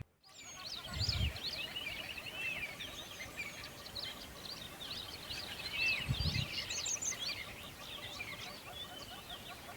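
A dense chorus of many small birds chirping and twittering together, with two low thumps, one about a second in and one about six seconds in.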